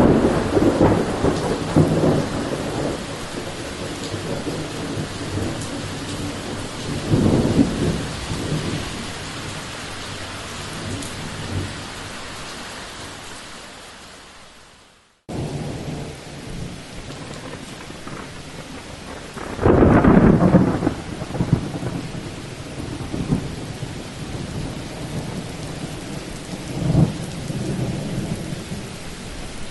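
Thunderstorm: steady heavy rain with rolling thunder, rumbling near the start and again about seven seconds in. The sound fades out briefly about halfway, then the rain returns with a loud thunderclap about twenty seconds in and a shorter rumble near the end.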